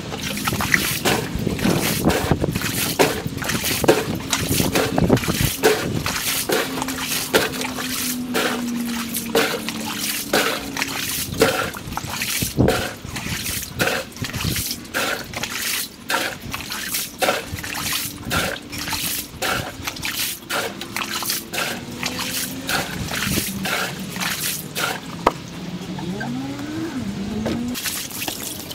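Water being scooped and splashed out of an above-ground pool with a bucket, played back at four times normal speed: a fast, busy clatter of splashes, knocks and dribbling water.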